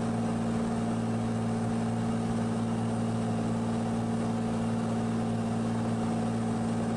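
Cirrus SR22's single piston engine and propeller droning steadily in cruise, heard inside the cabin as an even hum that keeps one pitch throughout.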